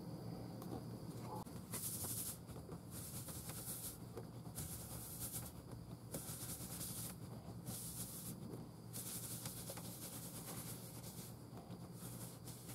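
Paper towel wiped by hand in repeated strokes across the inside of a wooden bowl, spreading friction polish: a soft hiss with each stroke, about once a second, over a steady low hum.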